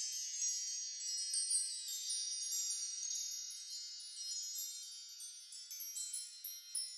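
Wind chimes tinkling: a shimmer of many overlapping high ringing notes that slowly fades.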